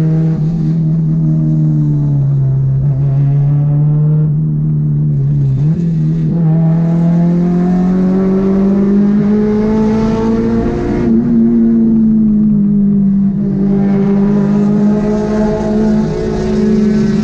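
Honda four-cylinder sports-car engine held at high revs under way. Its pitch sags, dips about six seconds in, then climbs slowly and stays high.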